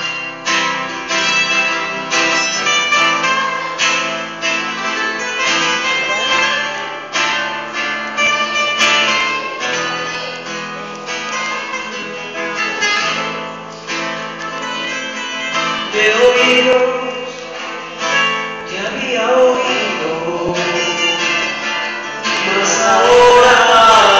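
Live worship song: strummed guitar with voices singing. The singing comes in more strongly over the second half and is loudest near the end.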